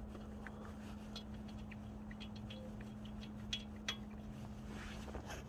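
Light metallic clicks and clinks as a 22mm socket is fitted onto a cordless impact wrench, a couple of them sharper near the end, over a steady low hum.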